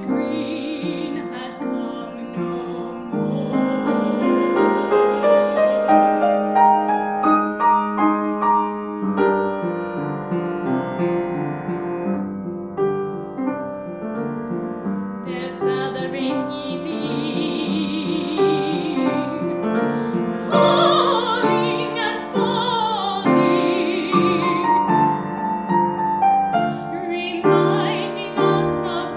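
Art song for female voice and piano: the piano plays flowing, rising figures, and a woman's classically trained voice sings with vibrato over it, most clearly in the second half.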